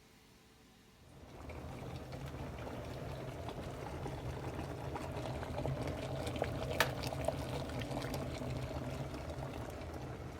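Electric kettle heating water: a steady hiss and low rumble starts about a second in and grows louder, with scattered small ticks and crackles.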